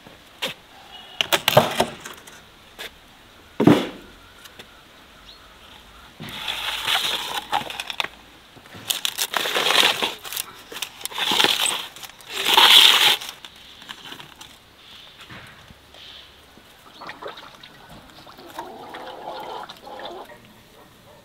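The metal door of a brick oven being opened with two sharp knocks, followed by four rough, scraping bursts of about a second each as a metal tray of baked fish is handled and drawn out.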